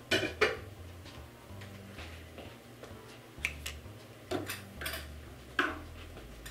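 A handful of short, sharp clinks and knocks of dishes and kitchen utensils being handled on a countertop while desserts are plated: two close together at the start, then four more spread through the middle.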